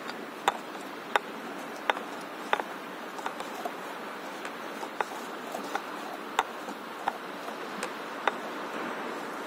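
Water lapping around a stand-up paddleboard on a calm sea, a steady wash, with a sharp tick roughly every two-thirds of a second.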